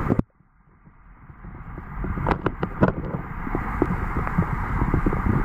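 Muffled underwater rumble of stream water moving past the submerged camera, with a few sharp clicks and knocks. It cuts out just after the start and fades back in over the next two seconds.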